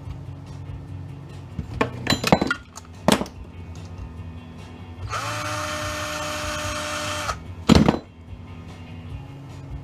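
Scrap parts clattering and knocking during teardown, then a small power tool runs steadily for about two seconds, followed by a loud knock.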